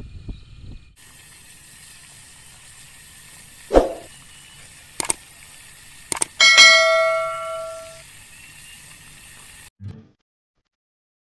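Three sharp knocks, then a loud metallic clang that rings on with several tones for about a second and a half, over a steady hiss; the sound cuts off abruptly near the end.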